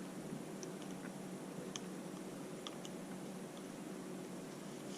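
Faint scattered light clicks and taps of a plastic remote key fob being handled, over a steady low hiss.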